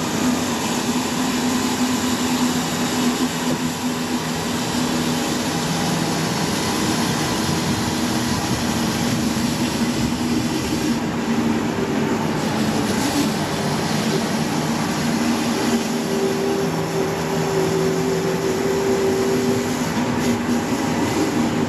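Stihl RB 400 gas pressure washer running steadily, its engine humming under a constant hiss of the high-pressure water jet blasting dirt off concrete.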